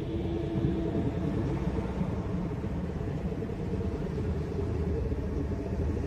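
A steady, low rumbling drone with no distinct strikes or splashes.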